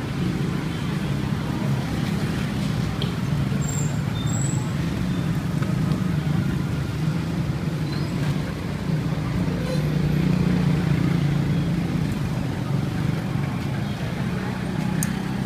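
Steady street traffic noise with engines humming close by.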